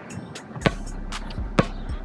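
A Spalding NeverFlat basketball bouncing on the court as it is dribbled, with two strong bounces about a second apart and a couple of lighter ones between.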